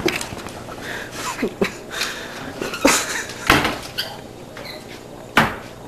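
A door banging and knocking as it is pushed and shut, with two loud sharp bangs about three and a half and five and a half seconds in among smaller knocks.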